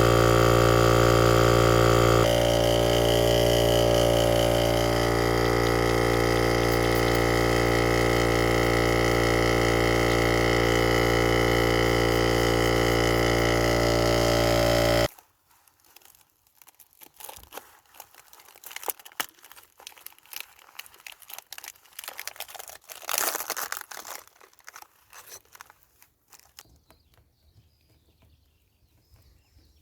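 Portable car air pump's electric compressor running steadily, then cut off abruptly about halfway through. After that, faint clicks and rustling of handling.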